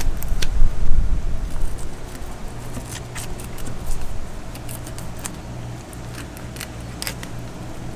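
An 8-inch flexible fillet knife working a fillet off a black grouper's rib cage, with scattered small clicks as the blade passes over the bones. A low rumble runs underneath, heaviest in the first second or so.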